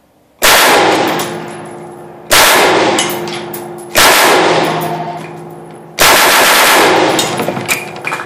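AR-15 upper held in a test fixture firing four single shots, about two seconds apart, each loud report dying away in a long echo. A few light clinks follow the last shot near the end.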